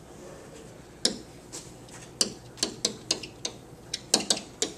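A pen tapping and clicking against an interactive whiteboard's surface as an equation is handwritten: about ten sharp, irregular ticks, sparse at first and coming faster after about two seconds.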